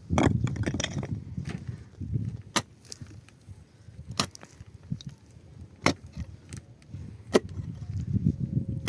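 Repeated sharp knocks, five of them about a second and a half apart, with low scuffling and rustling between them.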